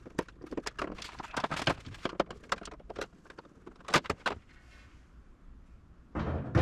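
Irregular clicks and knocks of metal parts and hardware being handled inside an RV-7A's aluminium fuselage as a part is worked loose and removed, with a sharper pair of knocks about four seconds in. Music starts just before the end.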